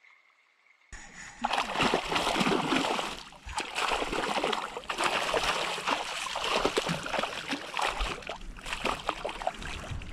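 Hooked smallmouth bass thrashing at the surface beside a kayak, making loud, irregular bursts of splashing water that start about a second in.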